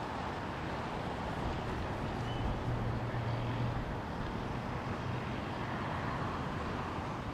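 Steady outdoor rumble with a low engine-like hum that is strongest about three seconds in.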